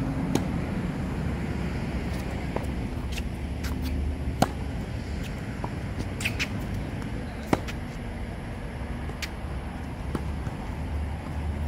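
Tennis rally: a ball struck by rackets with sharp pocks about three seconds apart, the loudest about four and seven and a half seconds in, with fainter bounces and footfalls on the hard court between. A steady low rumble of background noise runs underneath.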